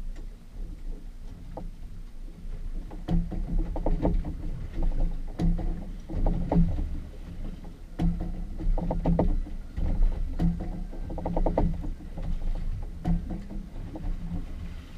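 Water slapping and knocking against the hull of a drifting boat in irregular bursts about once a second, over a steady low rumble.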